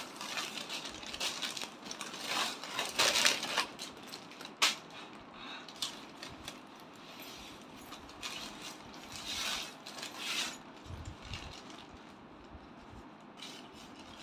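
Clear plastic bags crinkling and rustling in irregular bursts as a small child pulls and handles them, with a sharp snap about four and a half seconds in.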